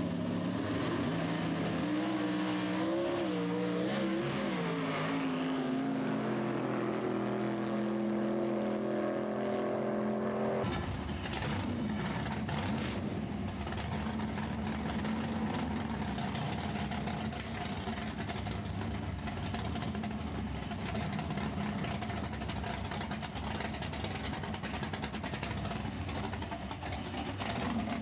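A race car's V8 engine runs with its pitch wavering, then holding steady. About a third of the way in the sound cuts abruptly to the 598-cubic-inch, normally aspirated Ford wedge-head V8 of a Pro Stock Thunderbird running steadily close by.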